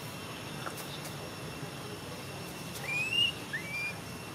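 Two short whistled animal calls about three seconds in, each rising in pitch, the second a little lower than the first, over a steady outdoor background hiss.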